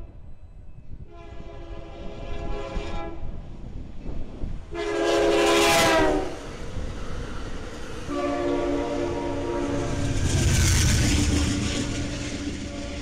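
Amtrak passenger train's multi-chime air horn sounding in three blasts as the train approaches and passes at speed. The middle blast is the loudest, and its pitch slides down as the train goes by. The last, long blast is lower in pitch, and the rumble and rushing of the passing cars swells beneath it.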